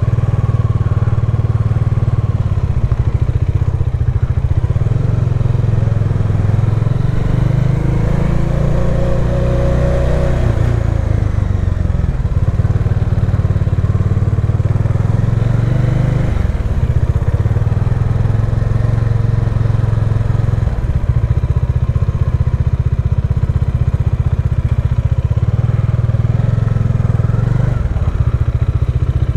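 Bajaj Dominar 400 motorcycle's single-cylinder engine running as it is ridden, its pitch rising as it accelerates about eight to eleven seconds in and dropping briefly around the middle.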